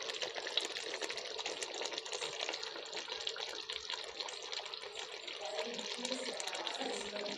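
Thick chicken gravy simmering in a metal pot on the stove: a steady hiss with many small crackling pops as bubbles break on the surface.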